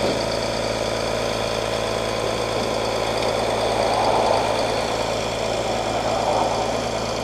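Flatbed tow truck's engine running steadily at idle, with a brief louder rushing swell about four seconds in.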